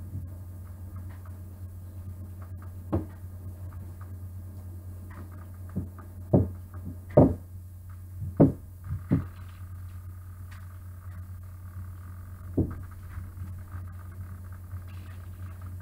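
Wooden cut-outs and small figurines knocked and set down on a tabletop: about eight sharp knocks, most of them clustered in the middle, over a steady low hum.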